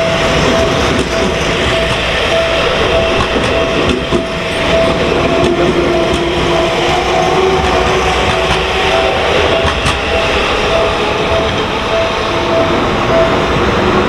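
Seibu Shinjuku Line commuter train passing close by, its wheels running loudly over the rails, while the level-crossing warning bell rings over and over. The bell stops about a second before the end as the last car clears.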